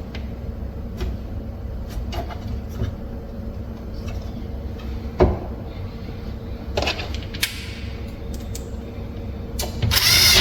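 Metal cabinet drawer slide being handled and adjusted: scattered light clicks and taps, a sharper knock about five seconds in, and a short scraping slide near the end.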